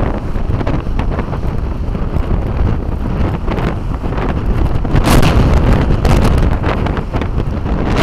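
Storm wind buffeting the microphone in heavy gusts, a loud rushing noise that swells into a stronger gust about five seconds in.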